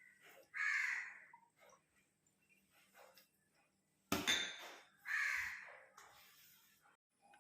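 A bird's harsh call, heard twice about four and a half seconds apart, each under a second long. A sharp knock comes just before the second call.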